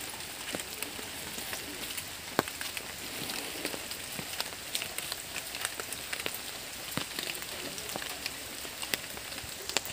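Steady rain falling, with irregular drops ticking sharply on nearby surfaces.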